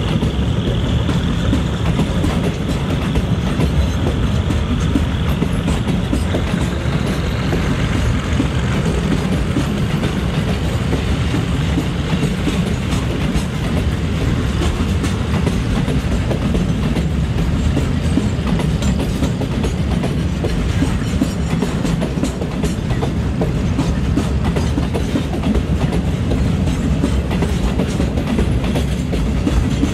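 Container freight train's wagons rolling past: a steady rumble of wheels on rail with many small clicks as they cross joints and points. A faint high whine fades out over the first several seconds.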